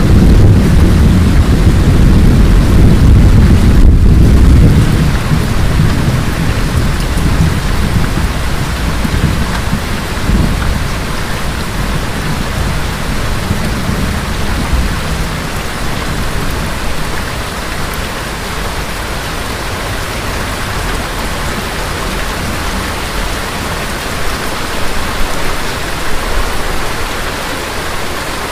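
Thunderstorm: a long low roll of thunder that fades away over the first five seconds or so, then steady rain.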